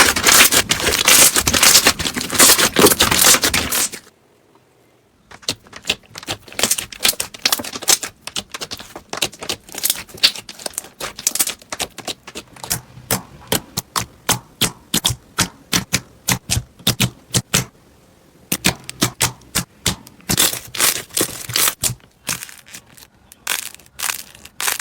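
Slime being squeezed and pressed by hand: dense crunchy crackling for the first few seconds, a short pause, then a long run of sharp clicking pops, about three a second.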